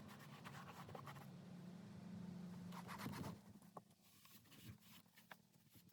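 Faint rubbing and scratching of a rag wiped over a truck's plastic door panel, with a few light ticks and a low hum that stops about halfway.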